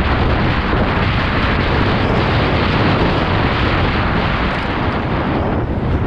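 Loud, steady wind buffeting on an action camera's microphone at downhill speed, mixed with the rumble and rattle of a Specialized Stumpjumper 29 mountain bike rolling over dry, loose dirt.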